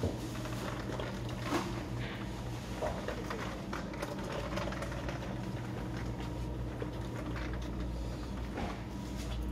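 Supermarket aisle ambience: a steady low hum with scattered light clicks and rustles.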